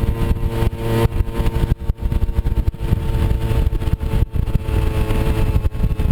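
Small moped scooter engine running at a fairly steady speed while riding, with a heavy, uneven low rumble beneath it.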